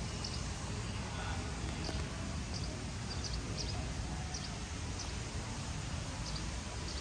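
Steady low background rumble, with short, faint high chirps every half second to a second, like small birds.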